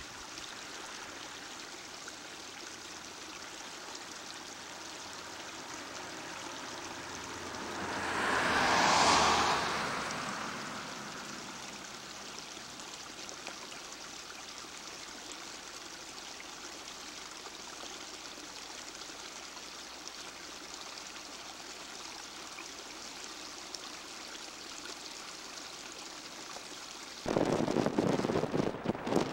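A steady rushing noise, with a louder whoosh that swells and fades about nine seconds in. Near the end, much louder road and wind noise from a moving car cuts in abruptly.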